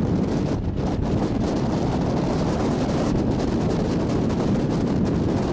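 Steady wind rushing over the microphone aboard a moving ferry boat, with the boat's running and water noise underneath.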